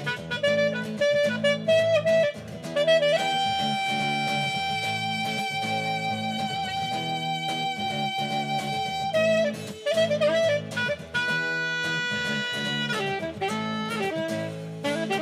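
Instrumental music: a saxophone-like lead plays a melody with two long held notes over a steady rhythmic backing.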